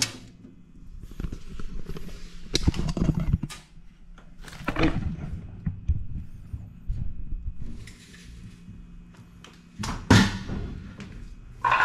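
Irregular knocks, thumps and scraping as a refrigerator's inner back panel is worked loose, with the loudest knock near the end.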